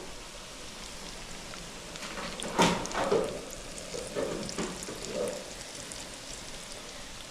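Butter melting in a little cooking oil, sizzling steadily in a hot frying pan, with a sharp knock about two and a half seconds in.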